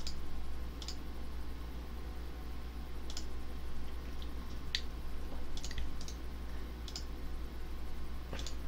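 Sparse light clicks, about eight spread irregularly over several seconds, above a steady low hum.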